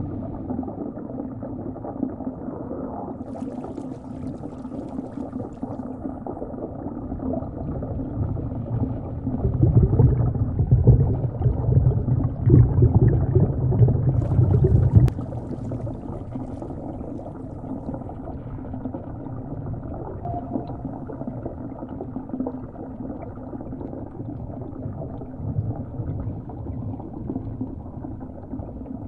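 Underwater sea ambience sound effect: a steady, low, muffled water noise. It grows louder for about five seconds near the middle, then drops back suddenly.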